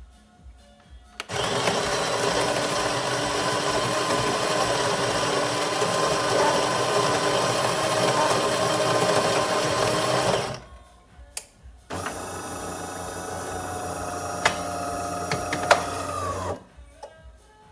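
De'Longhi Magnifica S automatic espresso machine running a brew cycle. Its built-in grinder grinds beans for about nine seconds. After a short pause the pump runs with a steady hum and a few clicks for about four seconds, then winds down.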